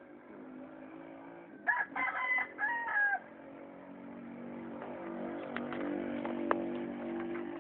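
A rooster crows once about two seconds in, a call of about a second and a half that ends on a falling note. A steady low hum grows louder through the second half, with a few sharp clicks.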